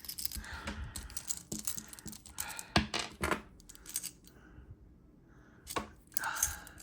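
Handling clatter: a series of sharp clicks and knocks from small hard plastic and metal items, a toy gun and screwdriver bits, being picked up and set down. The loudest knocks come a little under three seconds in and again near six seconds.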